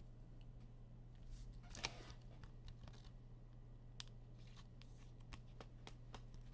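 Faint rustling and light clicks of trading cards being handled and flipped, a few soft ticks scattered through, over a steady low hum.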